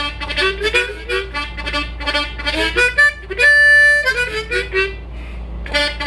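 Harmonica playing a fast riff with the flutter-tongue (Flatterzunge) effect, the notes broken into rapid pulses, with one steady held note about three and a half seconds in that is the loudest part.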